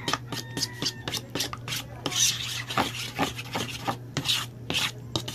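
Spoon stirring egg into a flour and cornstarch batter in a metal bowl, scraping the bowl in quick rhythmic strokes, about three or four a second.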